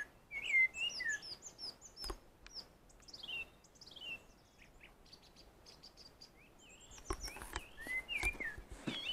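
A songbird singing from a treetop: phrases of short whistled notes that slide up and down, mixed with higher twittering, dense for the first four seconds, thinning out, then picking up again near the end. A few sharp knocks come in the last two seconds.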